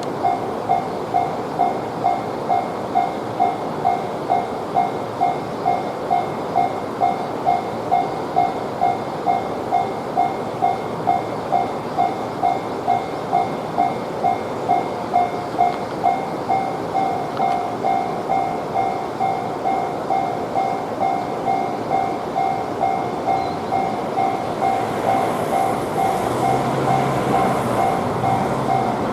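Japanese railroad crossing alarm ringing its steady kan-kan, about one and a half strokes a second. Over the last few seconds the noise of an approaching train grows beneath it.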